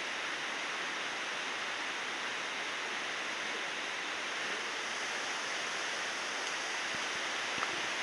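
Steady rushing of Chinda Falls, an even wash of falling water.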